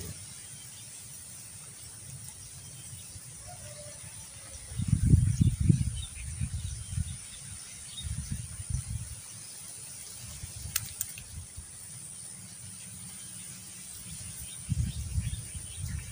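Quiet outdoor background with a steady faint high hiss, broken by several low rumbles, the loudest about five seconds in and others near the middle and end.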